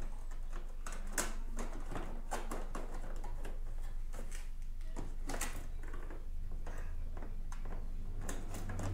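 Scattered clicks, scrapes and rustles of a tape-wrapped wire being worked by hand through a tight gap in a scooter's plastic fairings and frame, over a low steady hum.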